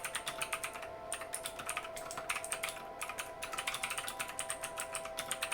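Fast typing on a Redragon VARA K551 mechanical keyboard with clicky blue switches modelled on Cherry MX Blues: a quick run of sharp key clicks, with short breaks about a second in and about three seconds in. The clicks are not too loud and pretty satisfying.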